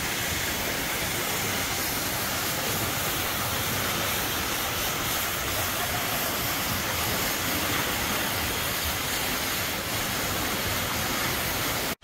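Steady hiss of rushing and spraying water from water-park slide runouts and misting nozzles, an even wash of noise with no distinct events.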